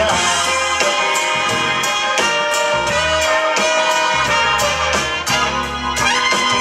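Live blues band playing an instrumental passage: trumpet and saxophone holding lines over electric guitar, bass and drums keeping a steady beat.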